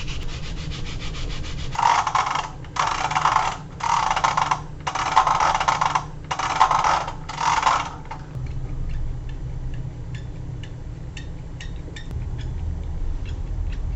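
Six rough rubbing or scraping strokes, each under a second and about a second apart, then a run of light scattered clicks, over a low steady hum.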